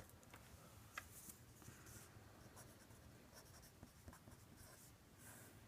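Faint handwriting: short, irregular scratchy strokes of a pen or marker writing out an equation, with a small tick about a second in.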